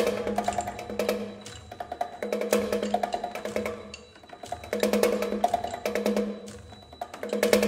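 Contemporary percussion music: fast runs of short, pitched knocking strokes in phrases that swell and fade about every two and a half seconds.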